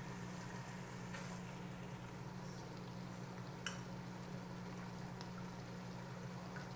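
Pot of chopped chicken gizzards and hearts simmering in a little broth, bubbling faintly, with a few small pops and ticks, the sharpest a little under four seconds in. A steady low hum runs underneath.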